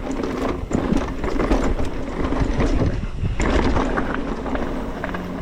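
Mountain bike rattling and clattering over rough trail, many quick knocks from the bike over tyre rumble, with wind buffeting the microphone.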